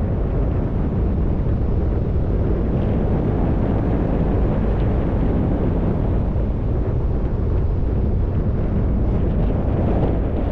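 Car driving on a road: a steady low rumble of road and wind noise, with wind buffeting the microphone.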